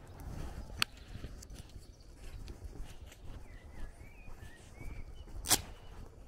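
Footsteps of a person walking on a dirt lane, with a few faint bird chirps in the middle and a sharp click about five and a half seconds in.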